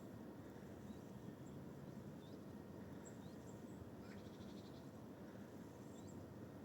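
Faint birds calling: short high chirps scattered throughout, with a brief rapid trill about four seconds in, over a steady low background rumble.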